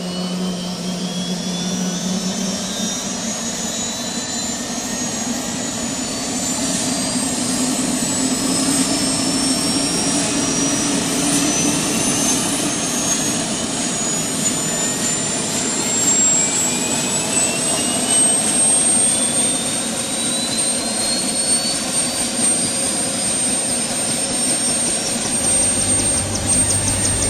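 Helicopter turbine engine spooling up: a high whine rising steadily in pitch for about twenty seconds and then holding level, over a continuous rushing engine noise.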